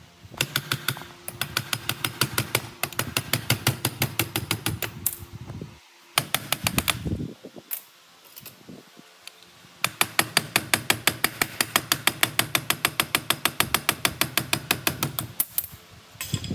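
Rapid, evenly spaced knocks or clicks, about six a second, in two long runs with a break of a few seconds between them, over a low steady hum.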